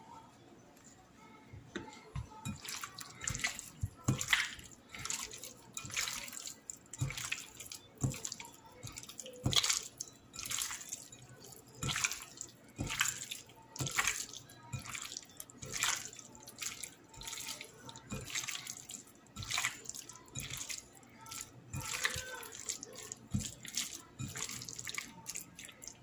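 A bare hand mixing raw chicken pieces with dry seasoning in a glass bowl: irregular wet squishing and slapping, about one or two a second, starting about two seconds in.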